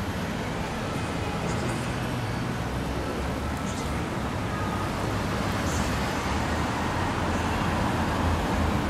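Steady low rumble of vehicle and road noise, slowly growing louder.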